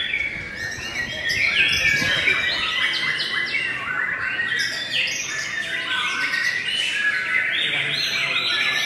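White-rumped shama singing: a loud, continuous run of varied, quick whistled notes and phrases that pack closely together without a break.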